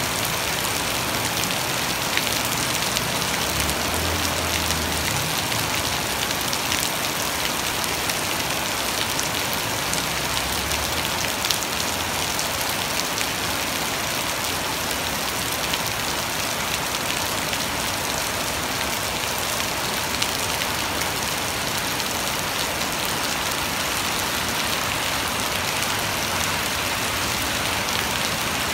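Heavy rain falling steadily on a flooded street and wet pavement, a dense, even hiss of drops splashing on standing water.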